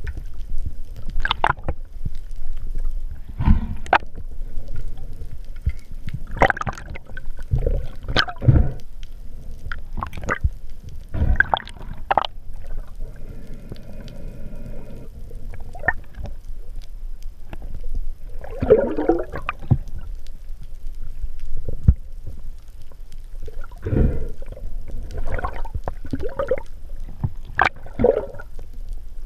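Muffled underwater sound picked up through a diving camera's housing: irregular gurgling and bubbling, with a few sharp clicks and knocks, as a speared hogfish is handled on the spear shaft.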